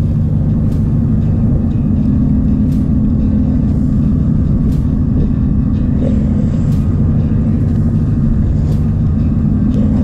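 Strong blizzard wind buffeting the microphone: a steady, loud, low rumble that does not let up.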